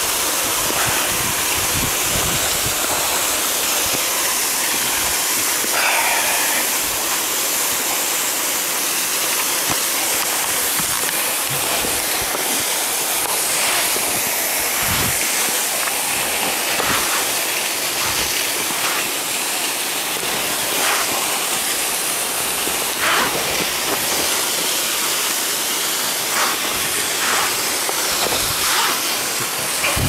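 Steady rush of a waterfall, with scattered clicks and knocks of the rope and metal abseiling gear close by.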